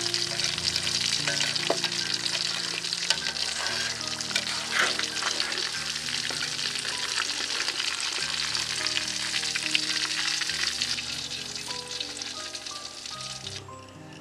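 Hot coconut oil sizzling and crackling around a whole fish frying in a pan, with the tongs shifting the fish; the sizzle cuts off suddenly near the end.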